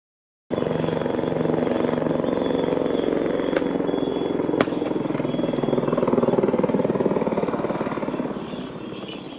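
A steady engine drone that starts suddenly and fades near the end, with a couple of sharp clicks in the middle.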